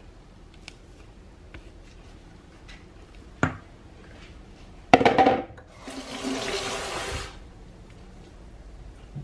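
A sharp knock, then a loud clatter of kitchen utensils, then water running from a tap for about a second and a half before it stops.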